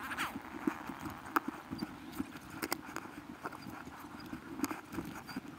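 Irregular knocks, clatter and scuffing of a mini dirt bike being wrestled on a steep dirt slope as it tips over.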